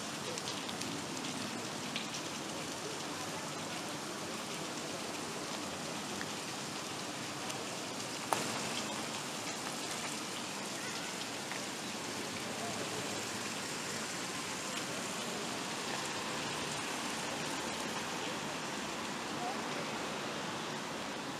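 Large monumental fountain's water cascading from its tiers into the basin: a steady, even splashing rush like heavy rain. A single sharp click about eight seconds in.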